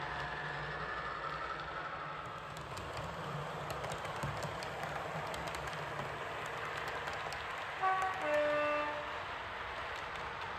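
OO gauge model diesel multiple unit running on the layout with steady running noise, its sound decoder giving a two-tone horn blast about eight seconds in: a short higher note, then a longer lower one.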